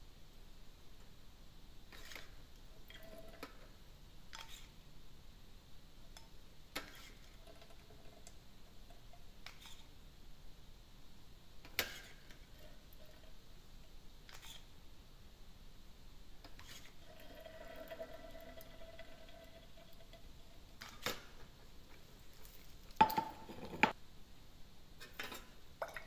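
Micropipette and glass test tubes being handled in a quiet room: scattered small clicks every couple of seconds as the pipette is worked, and a louder clatter of glass clinking a few seconds before the end.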